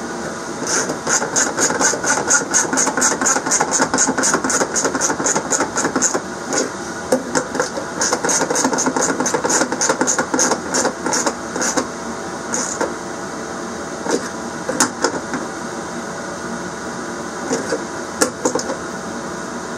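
Ratchet wrench clicking in quick runs of about five clicks a second, tightening the 10 mm bolts that hold the heater's fuel tank, then a few separate knocks of tools and parts.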